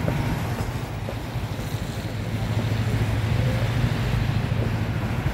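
Street traffic noise with a steady low engine rumble.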